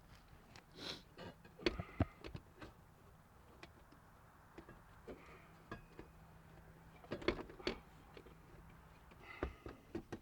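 Faint scattered clicks and knocks of hand tools and metal exhaust parts being handled, coming in small clusters, with a faint steady hum in the middle stretch.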